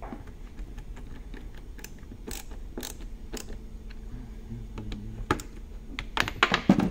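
Hand screwdriver tightening screws into the plastic housing of a Mercedes SL500 vacuum pump assembly: scattered light clicks and ticks as the screws turn, with a few louder knocks near the end.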